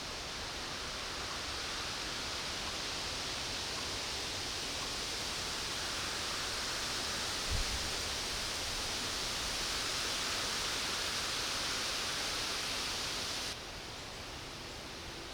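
Steady outdoor ambient hiss, even and without a pitch, with a brief low thump about halfway through. The hiss drops abruptly to a quieter level near the end.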